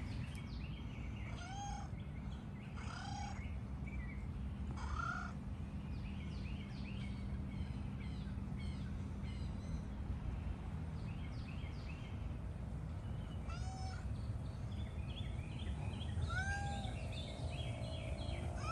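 Birds calling: short arched calls and chirps every second or two, over a steady low rumble.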